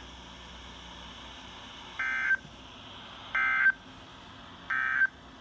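Emergency Alert System end-of-message signal on a weather radio: three short bursts of raspy two-tone digital data (SAME "NNNN" code), about a second and a third apart, over radio hiss. They mark the end of the weekly test message.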